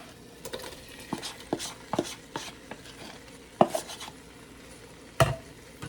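Spoon or utensil clinking and knocking against a bowl and pot as shrimp are tipped into the pot: a series of sharp clinks, the loudest about three and a half and five seconds in.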